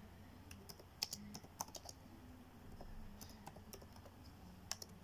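Faint typing on a laptop keyboard: an irregular run of single key taps as a short command is entered, the sharpest taps about a second in and again near the end.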